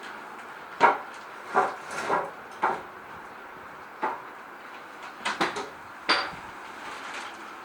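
A run of sharp, irregular knocks and clacks, about eight in all, some in quick pairs, over a steady hiss; the loudest comes a little under a second in.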